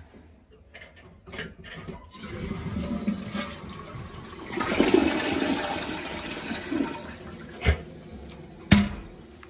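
Toilet with a push-button flush on the tank lid being flushed to test its newly installed fill valve: water rushes into the bowl for a couple of seconds and fades as it drains. Two sharp knocks follow near the end.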